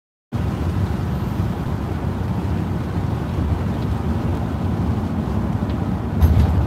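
Steady road and tyre noise of a car driving on a wet highway, heard from inside the cabin, a low rumble with a hiss above it. The sound drops out for a moment at the very start, and the rumble grows louder near the end.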